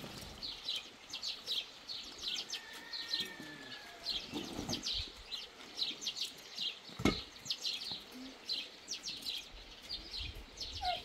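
Small birds chirping: many short, high chirps in quick succession, with one sharp knock about seven seconds in.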